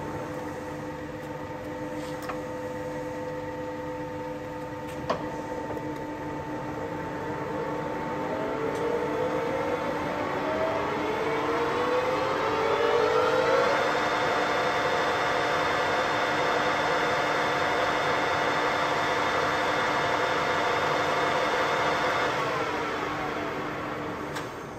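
Baoji CS6250B lathe running with its headstock gears whining. Its whine rises in pitch over several seconds as the spindle speeds up, holds steady and louder, then falls away near the end as it slows. There is a single sharp click about five seconds in.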